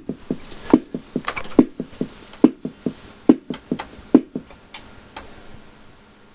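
Korg Mini Pops 120 analogue drum machine playing a rhythm pattern: short drum and click hits several times a second, which stop about five seconds in.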